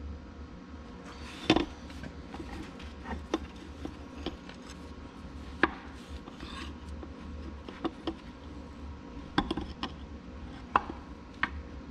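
Scattered metal clinks and knocks, with rubbing, as an oily piston on its connecting rod is worked out of an Oliver 1600 tractor engine block and turned over in gloved hands. The loudest knock comes about a second and a half in.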